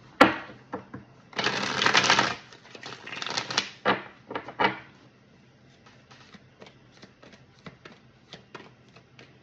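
Handling noise: a sharp click, then two short bursts of rustling and a few scrapes, followed by a long run of light, irregular clicks and taps.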